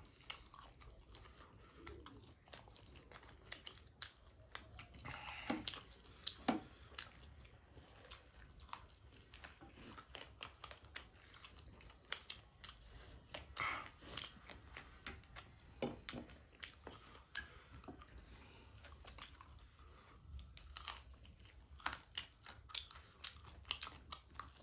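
Close-miked chewing and biting of food, with many small crunches and mouth clicks at irregular moments.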